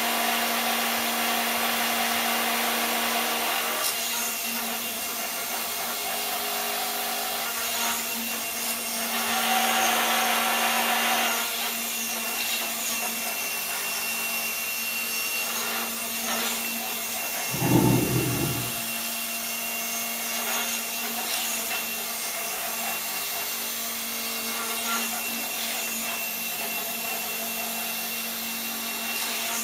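Steady mechanical whirring of a homemade gyroscopic inertial thruster's motors running as it is cycled, swelling for a couple of seconds about nine seconds in, with a short louder low burst about eighteen seconds in.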